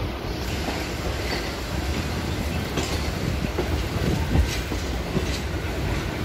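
Electric multiple unit (EMU) suburban train running, heard from the open doorway of its coach: a steady rumble of wheels on rail with clickety-clack from the rail joints and points. A few sharper clicks come about three, four and a half and five and a half seconds in.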